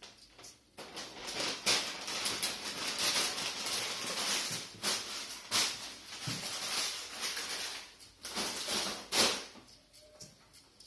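Scratchy, rattling mechanical noise from a small toy robot built of LEGO bricks working its front scoop arm, with a few sharp clicks. It starts about a second in and stops shortly before the end.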